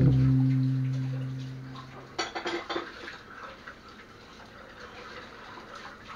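A held note of background music fades out over the first two seconds. Then a short clatter of dishes and cutlery comes about two seconds in, followed by faint water sounds from a kitchen sink.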